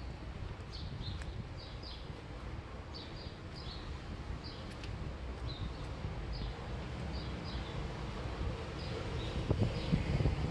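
Small bird chirping over and over in short high chirps, often in pairs, over a steady low rumble of street noise; a few soft knocks near the end.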